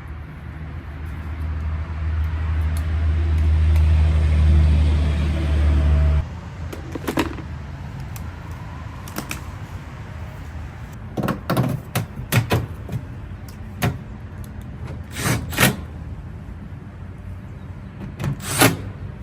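A steady low motor hum that grows louder and then cuts off abruptly about six seconds in, followed by scattered knocks and clicks.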